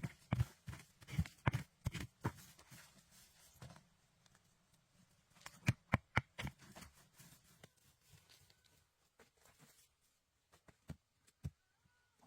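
Quick runs of sharp knocks and rustles, about two to three a second, in the first few seconds and again around six seconds in, thinning to scattered clicks with a few faint short high chirps later on.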